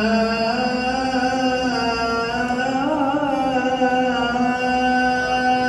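A single man's voice chanting in long, drawn-out held notes that bend slowly up and down in pitch, with no break for breath.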